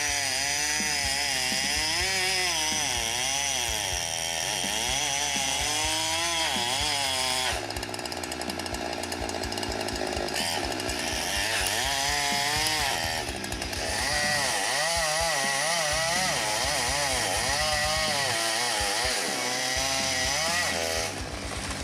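Chainsaw running while cutting into a tree, its engine pitch rising and falling over and over as it works through the wood. The sound changes about a third of the way in and again just past halfway, as a fresh cut starts.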